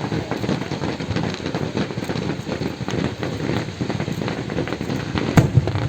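Fireworks crackling densely, a steady patter of many small pops, with one sharper, louder bang about five seconds in.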